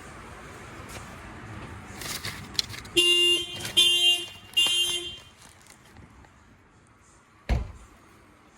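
A car horn sounds three times in quick succession, each blast about half a second long, over steady vehicle noise. A single thump follows near the end.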